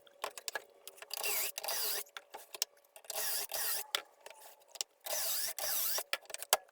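Small power-tool motor whirring in four short bursts of about a second each, its pitch dipping and rising within each burst, with sharp clicks and knocks between the bursts.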